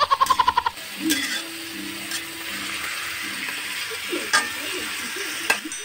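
Metal spatula scraping and knocking in a wok while stir-frying sliced bottle gourd, over a light sizzle, with a few sharp clicks of metal on the pan. A quick rattle of about ten rapid taps opens it.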